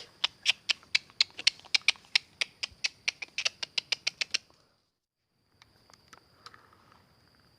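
Fishing reel clicking rapidly and evenly, about six clicks a second, for about four seconds, then stopping, with a few scattered clicks later. A faint steady high tone runs underneath.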